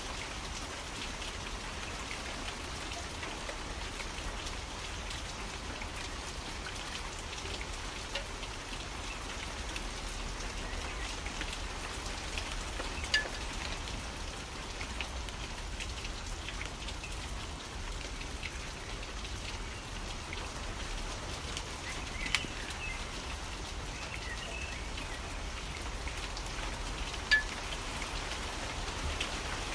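Steady rain falling, an even hiss of many drops, with a few louder single drops striking close by: one about halfway through and two near the end.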